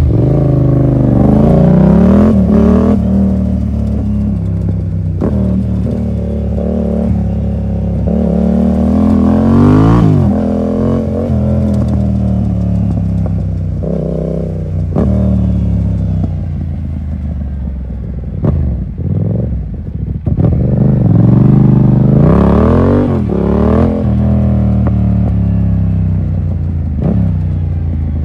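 Yamaha MT-07 parallel-twin running through an SC Project full exhaust with no dB killer, revving up through the gears and falling back again several times. The engine note climbs and drops repeatedly, with a few sharp pops where the throttle closes around the middle.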